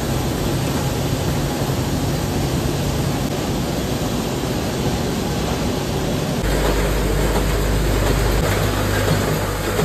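Snack-production machinery running: conveyor belts, a feeder and a packaging machine make a steady mechanical noise over a low hum. The hum gets louder about six and a half seconds in.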